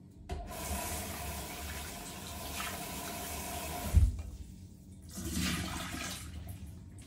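Kitchen tap running into a glass bowl of fish being rinsed, with a single low thump about four seconds in. The rinse water is then poured from the bowl into a stainless steel sink in a short splash.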